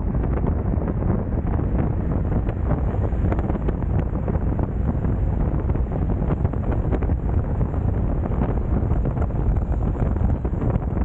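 Wind buffeting the microphone of a bike-mounted action camera at riding speed: a steady, deep rushing noise.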